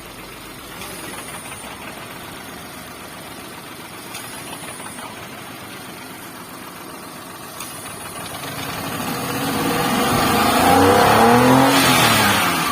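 Hyundai Eon's three-cylinder petrol engine running at idle, then revved up once near the end and let back down. It is running rough, still misfiring because cylinder two is getting no spark.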